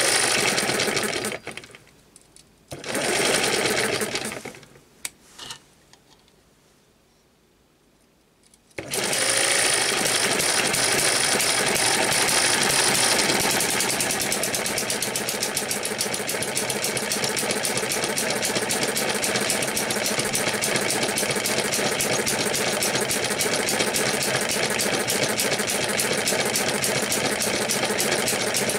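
Eachine ET1 model gas hit-and-miss engine spun over by its belted 12 V DC electric starter motor in two short bursts. About nine seconds in, it starts and runs steadily with a fast, regular ticking beat, driving the DC motor as a generator.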